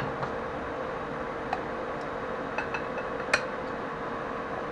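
A few light clicks and clinks of small hard parts being handled, spaced irregularly, over a steady faint hum.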